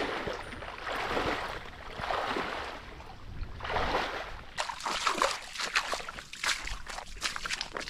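Wading through shallow water and soft mud: a slosh with each stride, then a run of wet crackling and popping.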